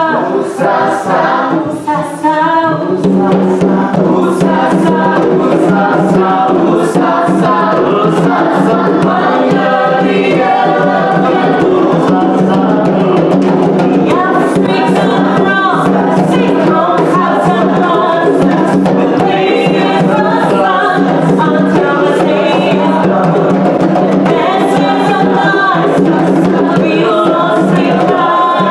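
A group of voices singing a chant-like song with a djembe hand drum. About three seconds in, a steady low note joins the music.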